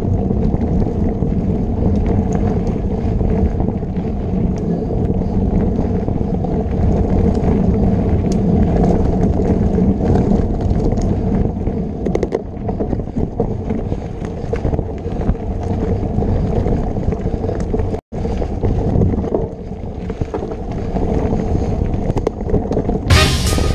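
Wind rushing over the microphone of a camera riding on a mountain bike at race pace along a dirt trail, with tyre noise and a steady rattle of clicks from the bike over the rough ground. The sound cuts out for an instant partway through, and music comes in near the end.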